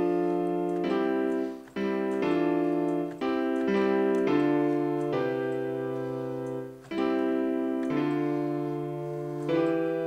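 FL Keys software piano played from a MIDI keyboard: a slow run of about ten sustained chords, each held half a second to a second and a half before the next, with a couple of short breaks where the keys are released. It is a chord progression being tried out by ear.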